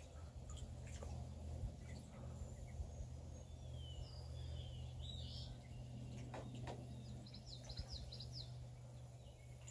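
Muscovy ducklings peeping softly: a few falling high peeps around the middle, then a quick run of short peeps near the end, over a steady low background hum.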